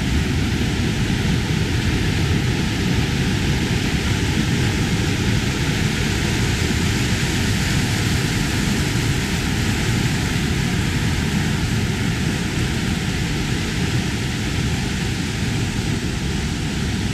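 Swollen mountain stream rushing over rocks in a loud, steady whitewater torrent, running higher than usual with rain.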